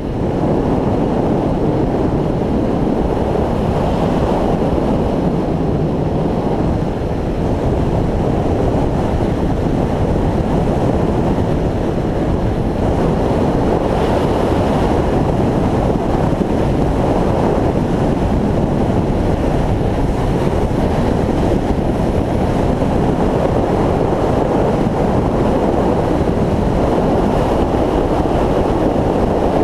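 Steady, loud wind rush over the microphone of a motorcycle moving at road speed, mixed with the bike's engine and road noise.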